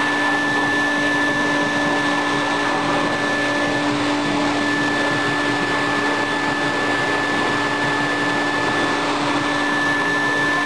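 Build-A-Bear stuffing machine's blower running steadily, blowing the fluff through the nozzle into a plush bunny as the foot pedal is held down. A rush of air with a steady low hum and a higher whine.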